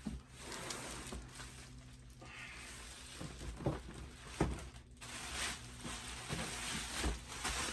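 Cardboard box and packaging being handled, with rustling and scraping and a few soft knocks.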